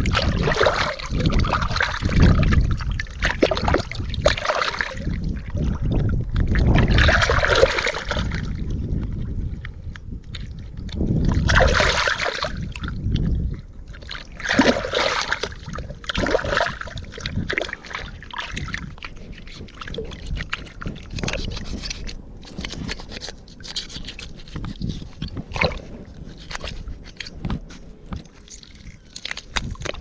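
River water splashing and sloshing in irregular bursts, heavier in the first half and then quieter and more scattered.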